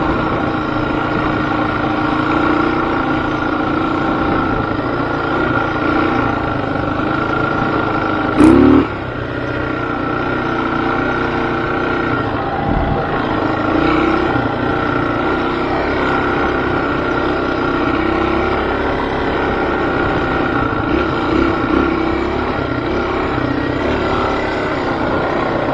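Motor vehicle engine running continuously, its pitch wavering up and down a little as it is ridden. A sudden loud burst lasting about half a second comes about eight and a half seconds in.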